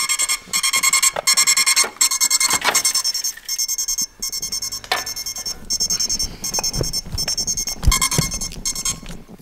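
A crashed FPV racing quadcopter's beeper sounding a fast, even run of high-pitched beeps, with the thumps of the quad being handled. The beeping stops just before the end.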